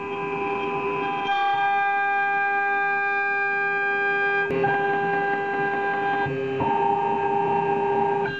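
CNC router cutting a wooden car body blank: the spindle's steady whine under the stepper motors' pitched hum, which jumps to a new pitch several times as the axes change speed.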